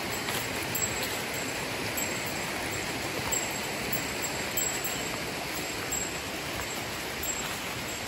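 Mountain river water rushing steadily, an even hiss with no breaks.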